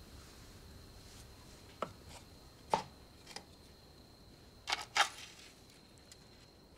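A small wooden box being handled and its lid opened: a handful of short sharp clicks and knocks, the loudest about three seconds in and a quick double knock about five seconds in. A faint steady high whine runs underneath.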